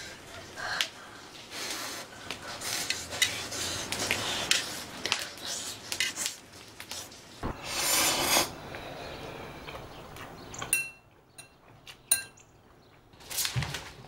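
Ramen noodles being slurped and chewed noisily, with light clinks of utensils on a metal pot and lid. About eight seconds in comes one loud slurp, then a quieter stretch with a few small clicks.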